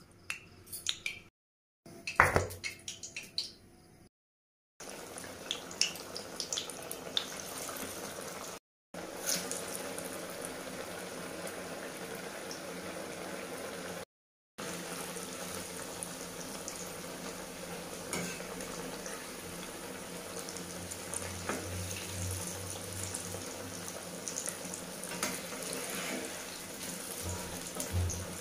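Raw-banana kofta patties deep-frying in hot oil in a wok: a steady sizzle with small crackles, broken by a few short silent cuts. A few sharp clatters come in the first seconds, and a metal spatula works in the oil near the end.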